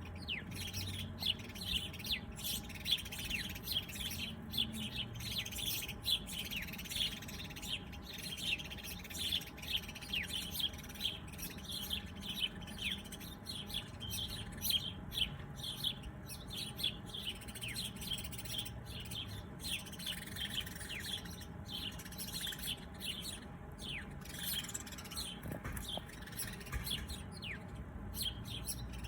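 A chorus of small birds chirping: rapid, short, high chirps, many sweeping quickly downward, several a second, over a low steady background rumble.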